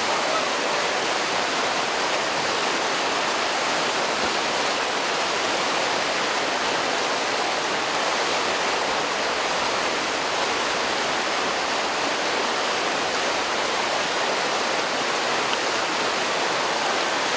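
Whitewater river rushing steadily, an even, unbroken wash of water noise.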